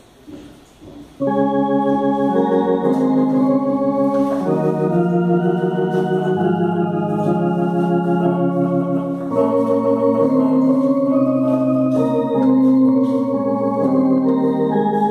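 Tokai MD-10 electronic organ played on a drawbar registration with vibrato: sustained chords with a melody line on top, starting about a second in.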